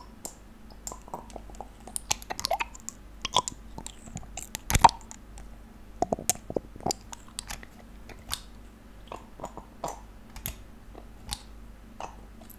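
Glass dropper bottle of face serum worked close to the microphone: the dropper's rubber bulb squeezed and released and the glass pipette tapping the bottle neck, making irregular small clicks and wet squelches, the loudest about five seconds in.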